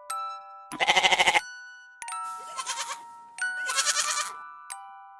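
A goat bleating three times: a quavering bleat about a second in, then two more between two and four and a half seconds. Light music of chiming bell-like notes plays underneath.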